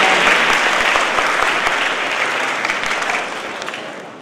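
A large audience applauding. The applause fades gradually from about three seconds in, down to a few scattered claps.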